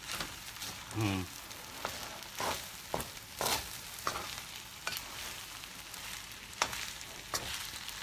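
Rice sizzling in a hot stainless steel pan as it is stir-fried, with a metal spoon scraping and clicking against the pan every second or so over the steady sizzle.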